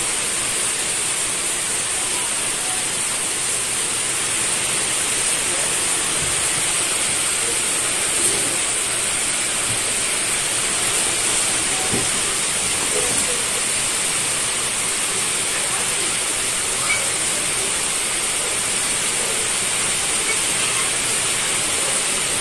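Steady hiss throughout, with a few faint soft knocks as raw meat chunks are set into an aluminium pot.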